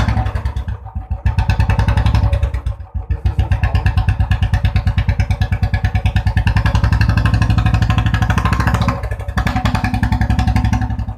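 Royal Enfield Bullet's single-cylinder engine running loud through an open, baffle-free short silencer, with a fast, even pulse. It has just been started, and its loudness dips briefly around three and nine seconds in.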